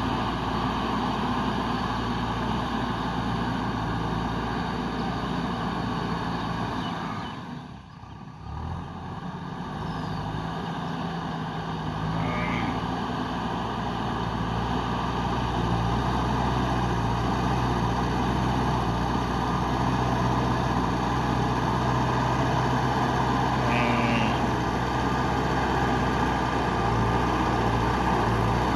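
JCB 3DX backhoe loader's diesel engine running steadily as it works the ground. The sound drops away briefly about eight seconds in, then returns and runs a little louder, with a couple of faint short squeaks.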